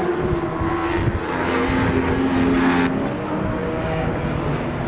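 Racing motorcycle engines running at high revs out on the circuit, several machines heard at once as a steady blend of engine notes. The sound changes abruptly about three seconds in.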